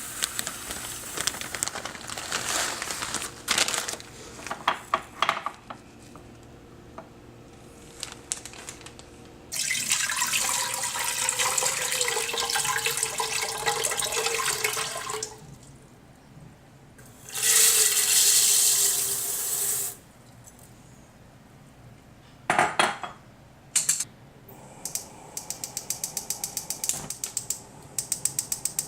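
Tap water running into a pot for cooking rice, in two pours of several seconds each, between the clatter of handling kitchenware. A rapid run of even clicks follows near the end.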